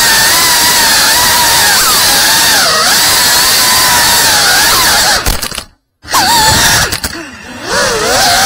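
FPV quadcopter's brushless motors and propellers whining, the pitch wavering up and down with the throttle. The sound cuts out for a moment about six seconds in, comes back, and dips again briefly a second later.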